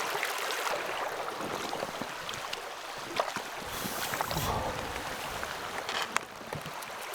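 Small river flowing: a steady rush of water, with a brief low rumble about four seconds in.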